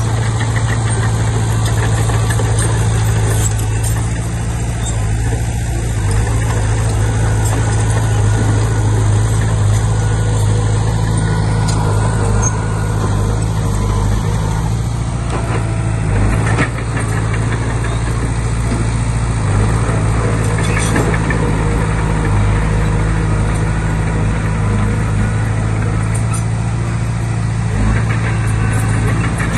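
Diesel engine of a Komatsu D20P bulldozer running at a steady speed, with a few short metallic knocks.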